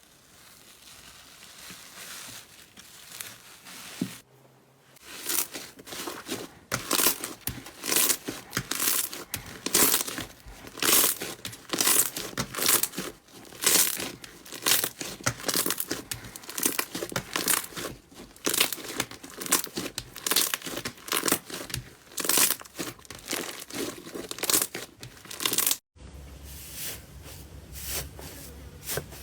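Slime being squeezed and stretched by hand, giving a run of sharp crackling snaps, about one or two a second. The sound changes abruptly about four seconds in and again near the end.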